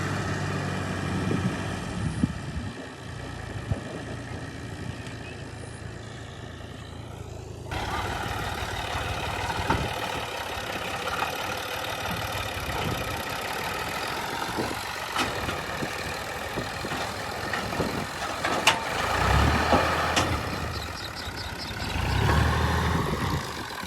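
Old combine harvester's diesel engine and machinery running steadily. About eight seconds in the sound changes abruptly to a denser, noisier running, with a few sharp clicks scattered through it.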